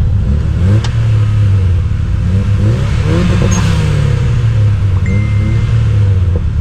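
Car engine running under load in traffic, its pitch rising and falling several times as it accelerates and eases off, heard from inside a car's cabin.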